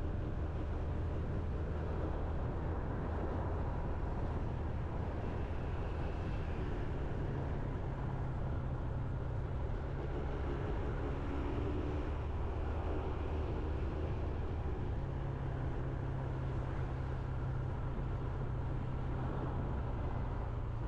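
Motorbike engine running while riding, with steady road and wind noise; the engine note rises around a quarter of the way in and again past the middle as the speed changes.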